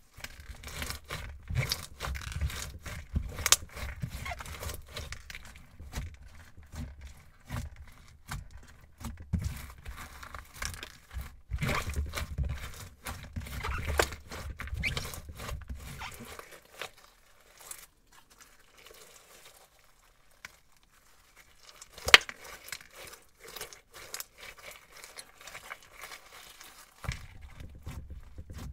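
Hands squeezing and kneading crunchy slime packed with foam beads, making a dense run of crackling, squishing clicks. The crackling thins out past the middle, with one sharp, loud click about three-quarters of the way through, then picks up again as the slime is pressed flat.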